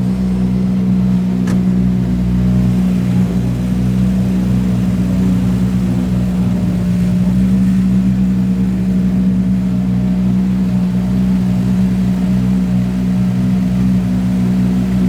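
An engine running at a steady, unchanging speed, giving a constant hum.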